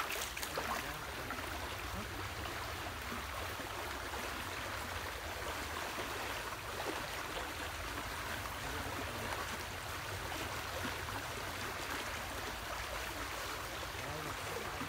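Steady swishing and sloshing of stream water around legs wading through it, with no distinct splashes standing out.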